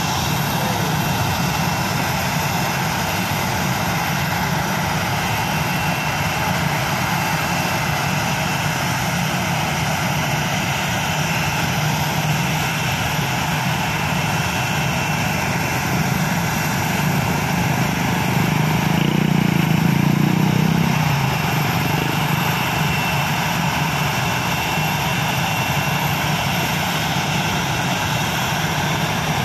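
Airbus A320 jet engines running steadily at low power, with a constant high whine over the engine noise. A low rumble swells briefly about 19 to 21 seconds in, then settles back.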